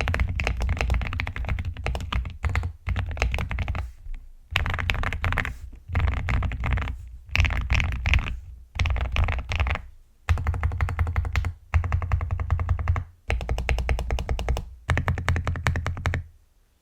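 Mechanical keyboard being typed on, an Aula F75 Max fitted with Akko Lavender Purple v3 tactile switches: quick runs of key clacks in bursts of a second or two with short pauses between, stopping just before the end.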